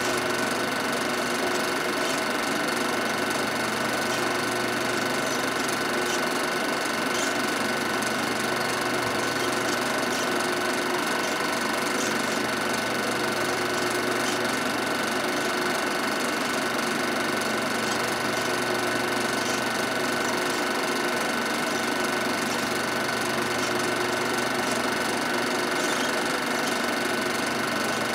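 Film projector running steadily: a constant mechanical whirring with a thin, unchanging high tone, the noise of the projector's motor and film transport.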